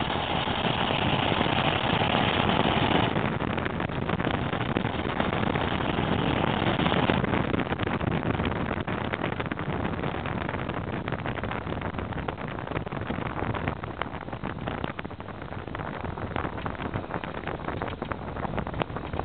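A 12-valve Cummins 5.9 L inline-six turbodiesel in a 1994 Dodge Ram 2500, exhausting through a 4-inch turbo-back pipe and a homemade muffler. It pulls hard under heavy throttle for the first several seconds, then eases to a quieter, steady cruise. Heard from the truck's bed.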